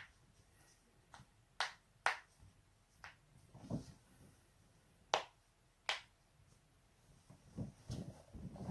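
Human joints being cracked: about half a dozen sharp, separate pops spread over the first six seconds, then softer low sounds near the end.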